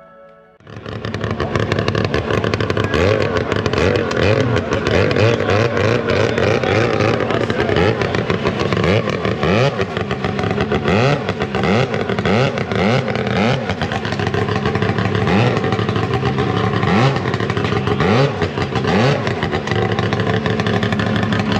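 Snowmobile engine running hard and revved up and down again and again, its pitch rising and falling about once a second, with a clattery mechanical edge, then falling away at the end.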